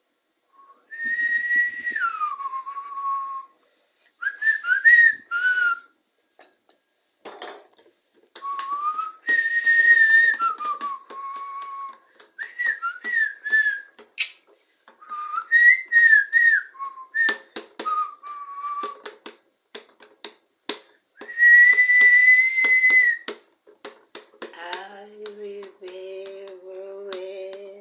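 A person whistling a short tune in phrases of gliding and falling notes, broken by many sharp tongue clicks and mouth pops. Near the end the whistling gives way to a low hummed tone among the clicks.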